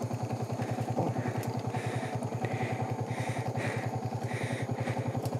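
Yamaha MT-15's 155 cc single-cylinder engine idling steadily, a fast, even putter with no revving.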